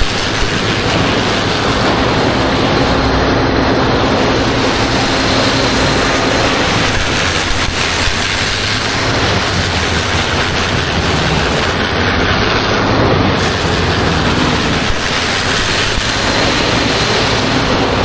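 525 hp diesel wood chipper running steadily under load, its spout blasting a dense stream of wood chips that rain down onto the chip pile. Loud and even throughout.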